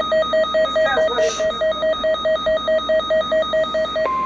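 Weather alert radio sounding its alarm: a rapid pulsing electronic beep, about four to five a second. About four seconds in it gives way to the steady 1050 Hz NOAA Weather Radio warning alarm tone that comes before the warning message.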